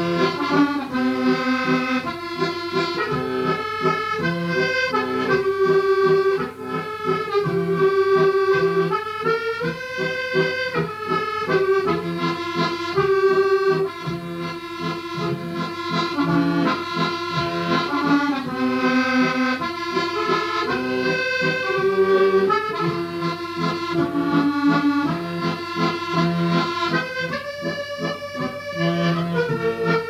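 Accordion music: a traditional tune with a melody played over a pulsing bass-and-chord accompaniment.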